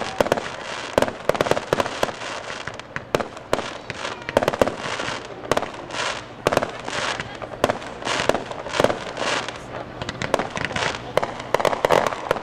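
Aerial firework shells bursting in quick succession: a steady barrage of sharp bangs, often several close together.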